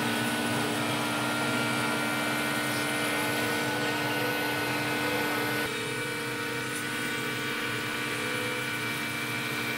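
ATS-0609 CNC router's spindle whining steadily while its bit mills a relief carving into a wooden panel, with a cutting hiss beneath the held tones. About six seconds in, the sound drops a little in level and its tones shift.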